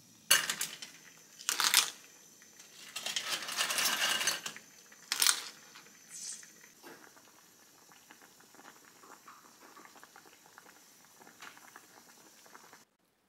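A pot of clam and mugwort soup boiling, with several loud bursts of chopsticks stirring and splashing in the first half, then a softer steady bubbling that cuts off near the end.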